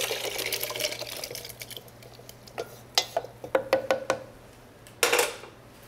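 Cooked apple and ginger mixture sliding and pouring from a stainless steel saucepan into a plastic blender container. Then a wooden spoon scrapes and knocks against the pan in a quick run of sharp knocks with a slight ring. There is a brief rush of noise near the end.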